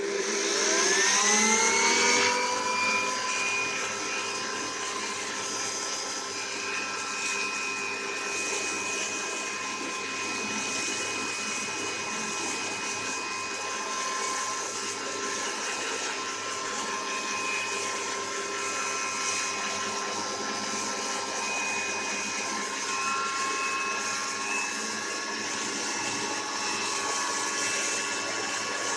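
Electric dust blower switched on, its motor whine rising as it spins up over about two seconds, then running steadily with a rush of air as it blows dust out of a desktop computer cabinet.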